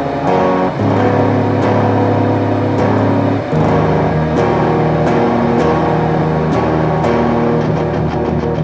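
Instrumental music: sustained guitar chords over a bass line, with regular percussion hits keeping a beat. The chord and bass shift to a new note about three and a half seconds in.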